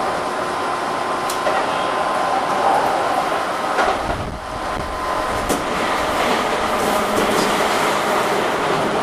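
Running noise inside a Keihan 6000 series commuter train car under way: a steady rolling rumble with a thin steady whine. A few clicks come from the wheels and track, and the noise dips briefly about halfway through.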